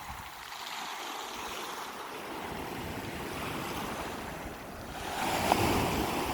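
Sea waves washing onto a beach of round pebbles, a steady wash that swells louder as a wave breaks about five seconds in.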